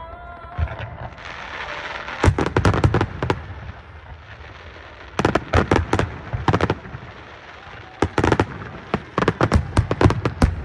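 Fireworks display: aerial shells bursting in three quick volleys of sharp bangs, with a steady rumble between them.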